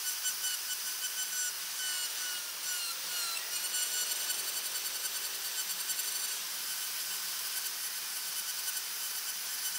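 Handheld electric rotary tool running with a steady high whine as its burr bit grinds into a wooden horse carving, over a hiss of wood being abraded. The whine's pitch sags briefly about three seconds in, then recovers.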